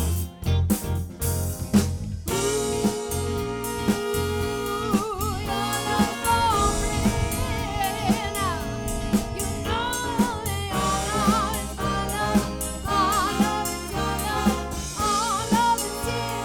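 A live soul band playing: a drum kit keeps a steady beat, about two hits a second, under bass and a lead melody that wavers up and down.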